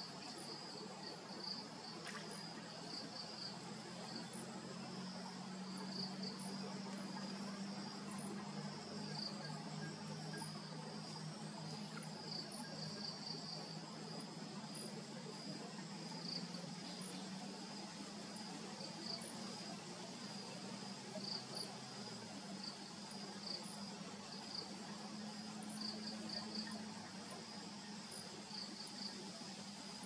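Insects chirring steadily in a high band that swells and pulses irregularly, with a faint low hum underneath.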